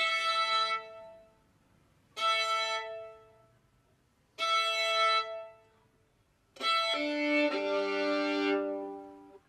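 Solo bowed violin playing the same chord three times, each held about a second with a pause between, then a longer phrase that drops to lower notes. The instrument is being tried out after a small adjustment to it.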